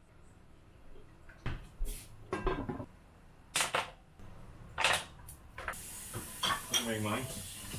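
Kitchen handling sounds at a stove: a handful of separate clinks and knocks of pans, lids and utensils, with a high hiss in the last couple of seconds.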